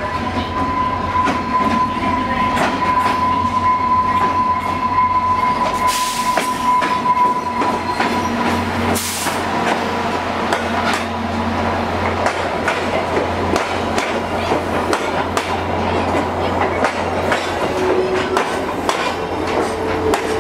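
VIA Rail EMD F40PH-2 diesel locomotive pulling in and passing close, its engine running, with wheels clicking over the rail joints as the passenger cars roll by. A steady high tone sounds over the first seven seconds or so, and a low steady hum comes in about eight seconds in.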